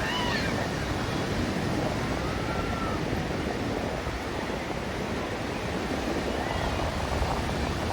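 Ocean surf washing on a beach, a steady even rush of waves. A few faint high calls cut through it near the start, around the middle and later on.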